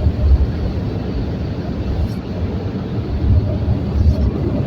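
Car wash dryer blowers running, heard from inside the car as a steady low rumble.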